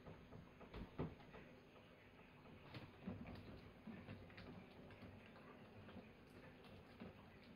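Faint clicks and light knocks of a plastic filter housing on a reverse-osmosis water filter being handled and taken apart, with one louder knock about a second in.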